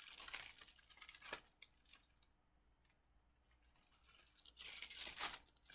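A sheet of parchment paper rustling and crinkling as it is peeled back off an ironed t-shirt transfer, in two bouts, the louder one near the end.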